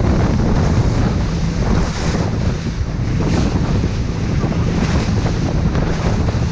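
Amur motorboat running at speed over choppy water: heavy wind buffeting the microphone over a low engine rumble, with the hull slapping through the waves and spray hitting a few times.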